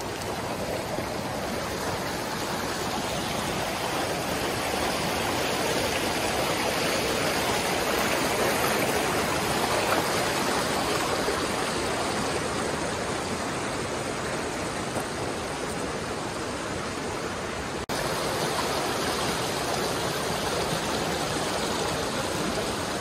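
Steady rush of flowing water from a mountain creek or falls, an even hiss with a brief break about three-quarters of the way through.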